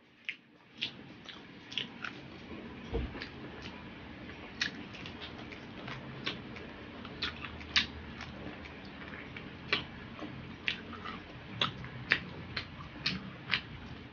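Close-miked eating: chewing with irregular wet clicks and lip smacks, one or two a second.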